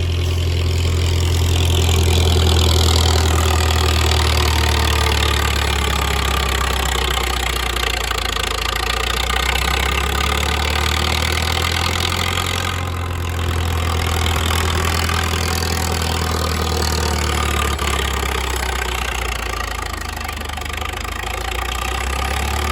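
An engine running steadily, with a deep even drone under a dense wash of mechanical noise.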